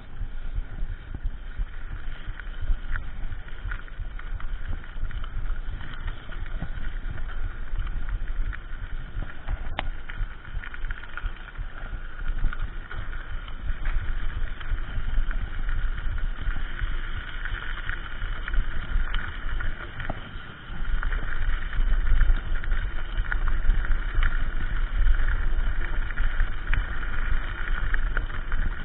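Mountain bike riding fast along a dirt track, heard from a camera mounted on its handlebar: a steady rumble of tyres and wind on the microphone, with a constant rattle and small clicks from the bike. The rumble dips briefly about twenty seconds in, then comes back louder.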